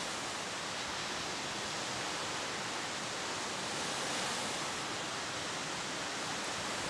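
Lake surf: two- to four-foot waves breaking and washing up onto a sandy beach, heard as a steady, even rush of water.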